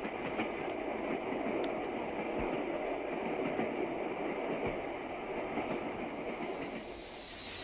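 Steam-hauled train running steadily along the line, a continuous even running noise with a few faint thumps from the track.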